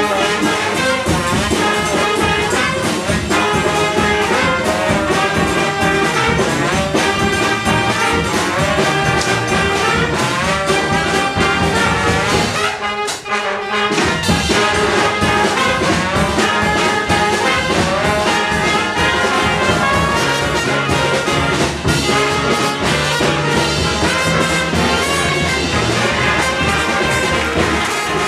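Brass band playing a lively tune, with a brief thinning of the sound about thirteen seconds in.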